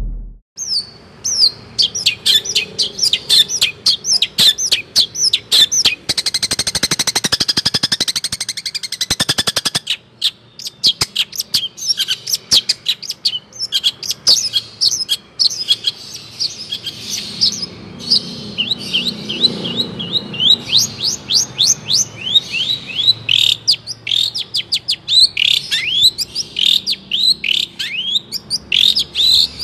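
A songbird singing: a long, fast run of sharp, high down-slurred notes, with a rapid buzzy rattle about six to ten seconds in.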